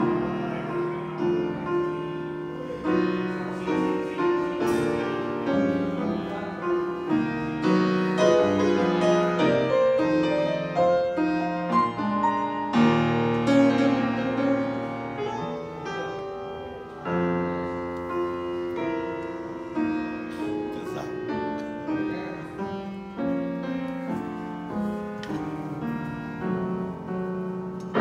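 Grand piano played solo, many notes and chords changing throughout and ringing over one another.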